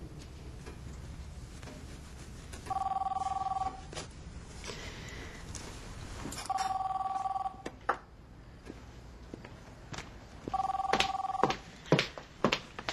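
Telephone ringing three times, each ring about a second long and about four seconds apart. A few sharp knocks and clicks come in the last few seconds.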